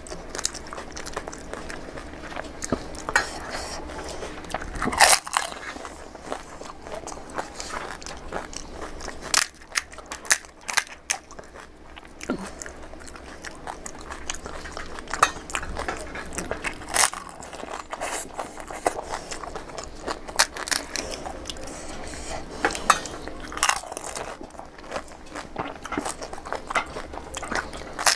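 Crisp panipuri (golgappa) shells crunching as they are cracked open and bitten, with chewing in between, close to the microphone. There are many sharp crackles, the loudest about five seconds in.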